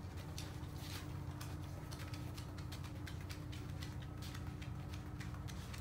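A small dog's claws clicking irregularly on a laminate floor as a Chihuahua walks on its front paws, over a steady low hum.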